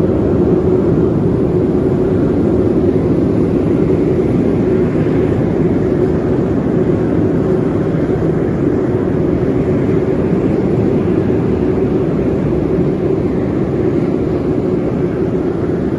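High-velocity gas burners on a bogie hearth heat-treatment furnace firing, a loud, steady roar with a steady low hum running through it.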